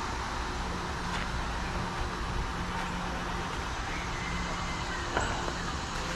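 Steady outdoor background rumble with an intermittent low hum, like distant road traffic, and a faint thin whistle about four seconds in.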